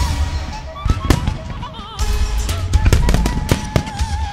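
Aerial firework shells bursting in sharp bangs, several in quick succession, over loud music with a sustained, wavering melody.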